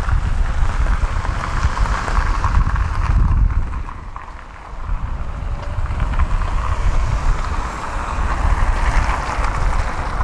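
Wind buffeting the microphone in gusts over a steady outdoor noise, easing briefly about four seconds in.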